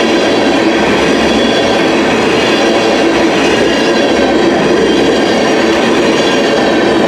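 Canadian National manifest freight train's cars rolling past at close range: a loud, steady rumble and rattle of steel wheels on the rails, with faint high squealing tones.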